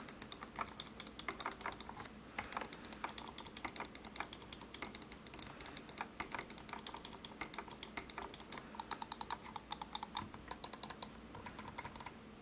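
ROCCAT Kone EMP gaming mouse buttons clicked over and over in quick runs of sharp clicks, with a brief pause about two seconds in.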